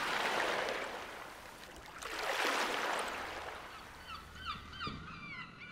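Two swells of rushing noise, one at the start and one about two and a half seconds in. Then, in the last two seconds, a run of short chirping bird calls with a single low thump among them.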